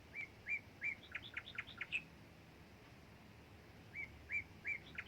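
A songbird singing two similar phrases about four seconds apart. Each phrase is three hooked whistled notes followed by a quick run of falling strokes.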